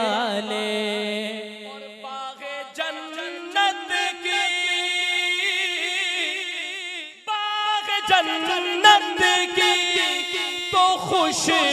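Male naat reciter singing into a microphone, drawing out long melismatic lines with a wavering pitch, with a brief break about seven seconds in.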